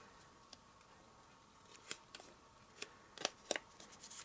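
A handful of light clicks and taps of card stock and vellum being handled and pressed into place, spread over a quiet background.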